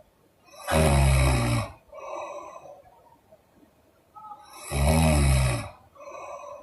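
A woman snoring in her sleep: two loud snores with a low, buzzing vibration, about four seconds apart, each followed by a softer, shorter breath.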